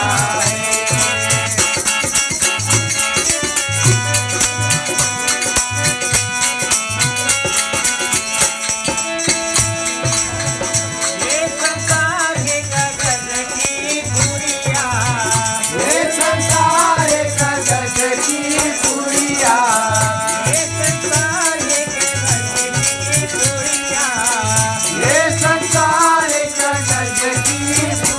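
Fiji kirtan devotional music: a harmonium holds sustained chords and melody over a drum's steady beat and fast, even strokes of a jingling metal percussion. A singing voice comes in about twelve seconds in and carries on in phrases.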